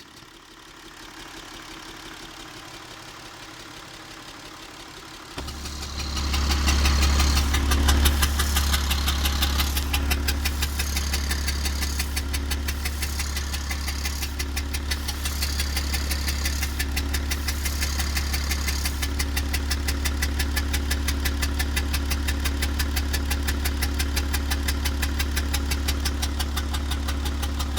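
BMW X5 E53 3.0d's straight-six diesel idling with a fast, even ticking, the strange noise from the intake manifold. It gets much louder about five seconds in, with short bursts of hiss over the next fifteen seconds.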